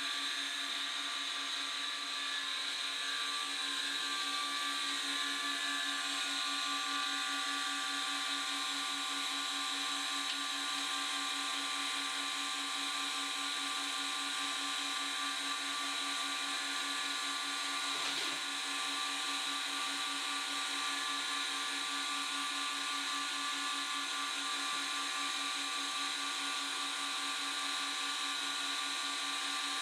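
Acer Supra-618 II surface grinder's wheel spindle running steadily: a constant whine with several fixed tones and a hiss, while an aluminum oxide stick is held against the resin-bond diamond wheel to dress down its high sides. A single faint click a little past halfway.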